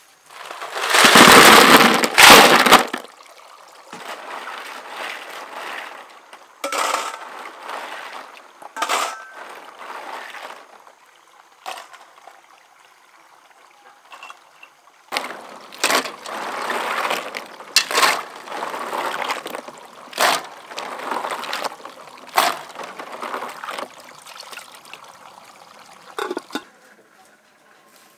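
Water sloshing and pouring in repeated short spells as stream snails are washed by hand in a plastic basin; the loudest spell, about two seconds long, comes near the start.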